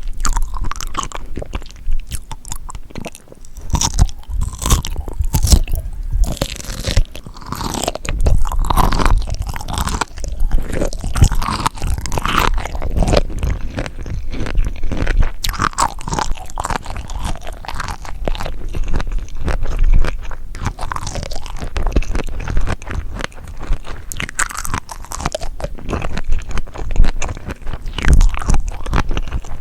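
Close-miked mouth chewing and biting into seafood such as herring roe, sea grapes, octopus or shrimp: a dense, irregular run of sharp pops and clicks with wet smacking in between.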